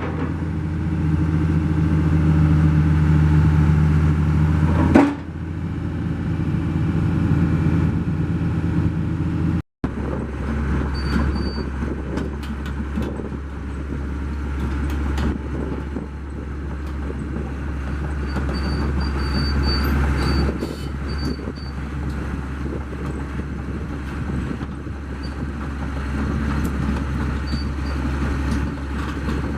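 Daewoo DH130 excavator's diesel engine running steadily, its note dropping to a lower, quieter level about five seconds in. A brief break follows, after which it runs on with scattered light clicks and knocks.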